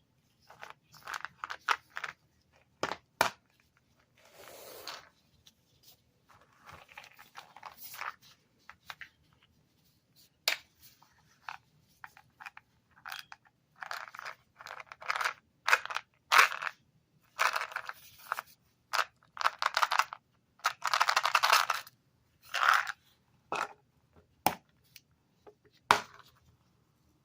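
Packaging being torn and crunched in irregular bursts, with a few sharp clicks between them.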